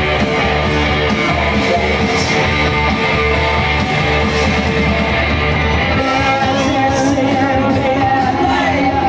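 Loud rock-and-roll music with a singing voice and guitar, playing steadily.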